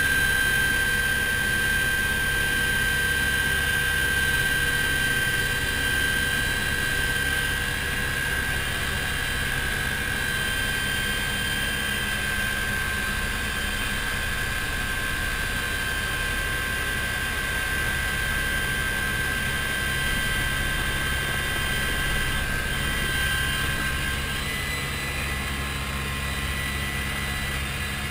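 Light helicopter's engine and rotor heard from inside the cockpit: a steady high whine over a fast low rotor beat, a little quieter near the end.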